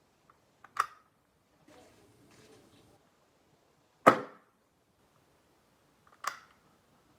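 Glock 17 replica air pistol firing three sharp shots: about a second in, at about four seconds, and at about six seconds. The middle shot is the loudest, and there is faint handling rustle between the first two.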